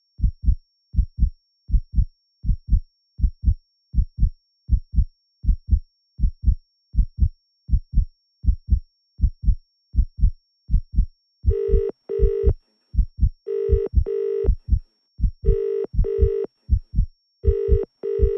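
A slow, steady heartbeat, a low double thump a little more than once a second. About eleven seconds in, a telephone starts ringing over it in pairs of short rings about every two seconds, and the heartbeat carries on underneath.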